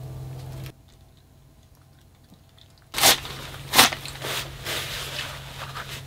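Crunching, crinkling handling noises: a few sharp loud strokes about three seconds in, then softer rustling, over a low steady hum. Before them a steady hum cuts off suddenly to near quiet.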